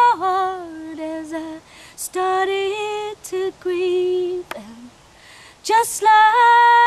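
A woman singing a cappella, unaccompanied, in phrases of long held notes with short pauses between them.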